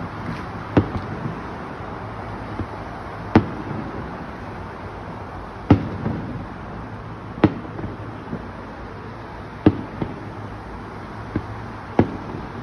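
Aerial firework shells bursting: a sharp bang every two seconds or so, some trailed by a short rumble or crackle, with a few smaller pops between, over steady background noise.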